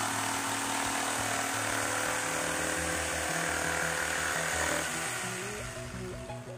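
NRT Pro JS80HD corded jigsaw with a Bosch T111C wood blade running steadily as it cuts a curve through 18 mm plywood. The saw noise dies away over the last second or so as the cut finishes and the saw is lifted out.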